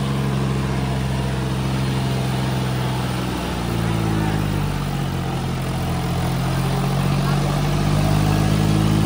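John Deere 5310 tractor's diesel engine running flat out under heavy load as it pulls against another tractor, with its front wheels off the ground. The note holds steady, wavers slightly a few seconds in, and grows a little louder near the end.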